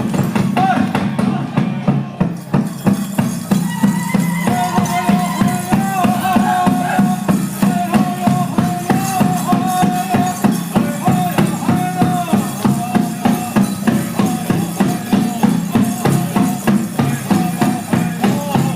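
Native American drum music: a steady beat of about three strokes a second with a rattling layer over it. A chanted song with long held notes comes in about four seconds in.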